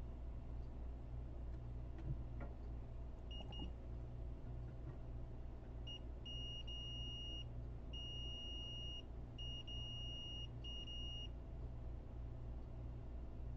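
Multimeter continuity beeper sounding a steady high tone, first two short pips, then several broken beeps about a second long, as the probes find a short on the PS5 motherboard that should not be there. The repairer takes the short for a probably bad retimer chip. A steady low hum runs underneath.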